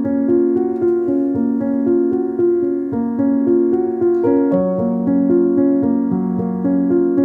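Piano music: a melody of held notes over chords, with the notes changing about every half second at an even pace.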